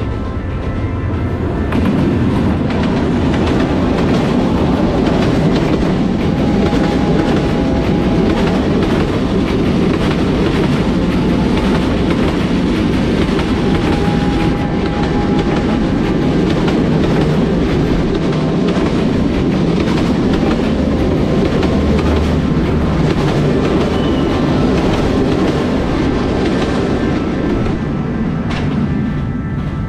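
Diesel-hauled passenger train passing close by: the locomotive's rumble, then a long line of coaches with wheels clattering over the rail joints. The noise builds about two seconds in, stays loud and steady, and eases off near the end as the last coach goes by.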